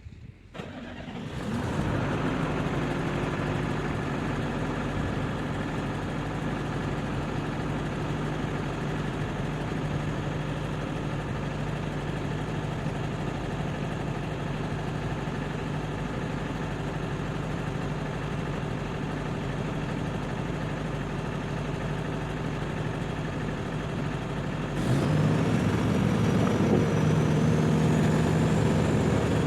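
Heavy construction machine's diesel engine running steadily with a low hum. It comes in about a second in and gets louder about 25 seconds in, when a faint high whine joins.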